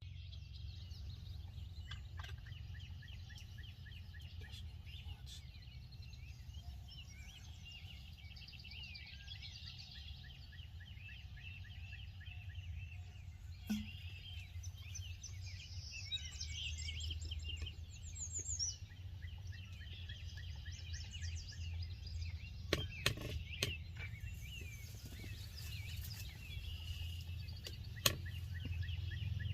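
Sandhill cranes giving their rolling, rattling calls, with smaller birds chirping, over a steady low rumble. A few sharp knocks come in the second half.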